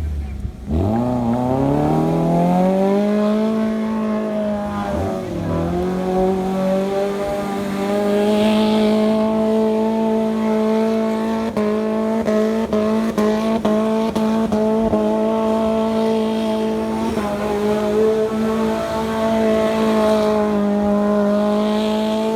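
A 4x4's engine revving up over the first couple of seconds, dipping briefly about five seconds in, then held at high, steady revs. Scattered sharp knocks come through between about eleven and fifteen seconds in.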